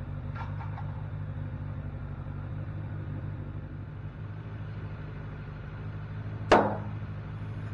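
A steady low machine hum, with one sharp knock about six and a half seconds in, the loudest sound here.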